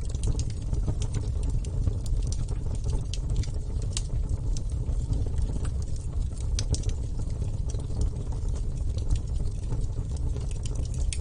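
Wood fire burning, with frequent sharp crackles and pops coming at irregular intervals over a steady low rumble.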